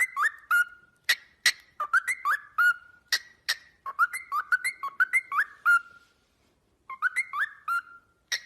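A pet bird whistling short, repeated phrases of sliding notes mixed with sharp clicks, pausing for about a second past the middle before going on.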